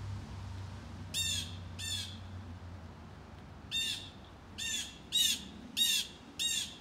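Blue jay giving a series of harsh, short 'jay' alarm calls, seven in all: two about a second in, then five in quicker succession from about four seconds. The jay is raising the alarm at a Cooper's hawk eating its prey nearby.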